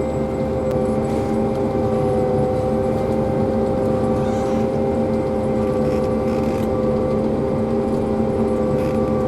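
Large harvesting machinery running steadily at constant speed: a loud, even drone with a steady whine over it and no change in pitch.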